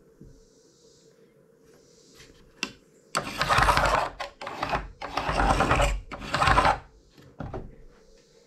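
A handheld power tool running in three short bursts of about a second each, the middle one the longest, working the door's wooden planks. A single sharp tap comes just before the first burst.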